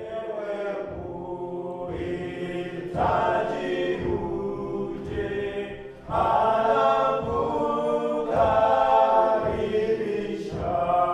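A choir singing together in harmony, long held notes over a steady beat about twice a second.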